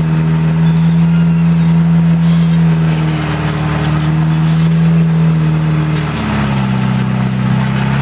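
Rock-crawler buggy's engine running at steady revs as the buggy crawls up a rock ledge. The engine note drops lower about six seconds in.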